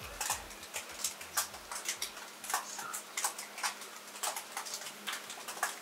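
Roller being worked through wet epoxy resin, making a run of irregular small sticky clicks and ticks, several a second.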